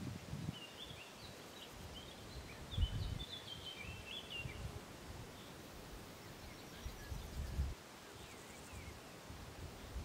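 Small songbirds chirping in quick, short high notes, busiest in the first few seconds, over low gusts of wind rumbling on the microphone.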